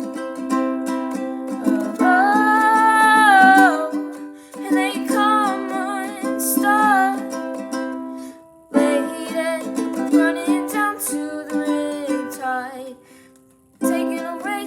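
Ukulele strummed with a voice singing along. The strumming breaks off briefly twice, the second time fading out for about a second before it starts again.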